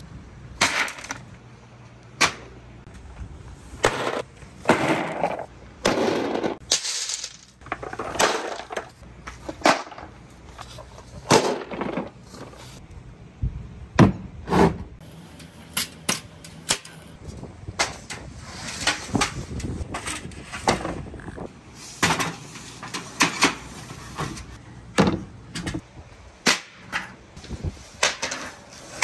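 Irregular knocks, clatter and scrapes of marble-run gear being handled and set down: plastic crates holding balls and glass marbles, a plastic tub, and a wooden slope laid on an aluminium trestle.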